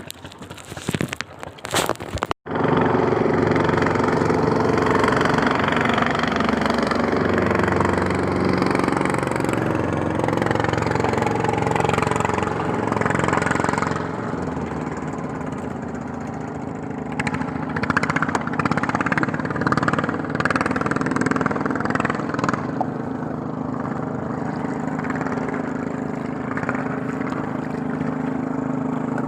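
A small engine running steadily, starting abruptly about two seconds in after a short stretch of crackling noise.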